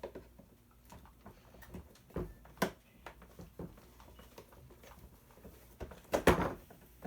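Hard plastic toy parts clicking and knocking as stuck pieces are worked loose. There are scattered small clicks, a sharp click a little over two seconds in, and a louder cluster of knocks about six seconds in.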